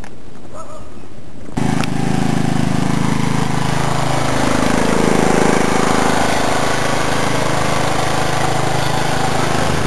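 An engine running steadily, cutting in suddenly about a second and a half in and holding to a continuous drone.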